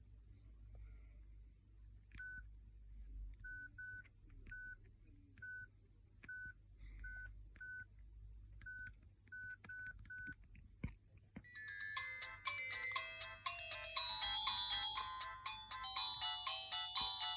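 Huawei G6153W mobile phone: about a dozen short, identical keypad beeps at irregular intervals as its buttons are pressed, then a few seconds before the end one of its preloaded ringtones starts playing, a quick, bright melodic tune.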